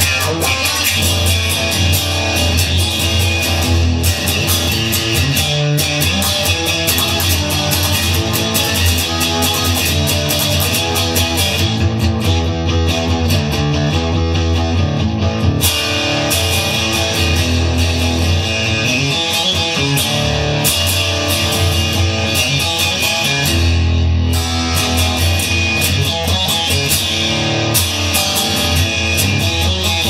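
Guitar-led music, plucked and strummed guitar over a strong bass with a steady beat.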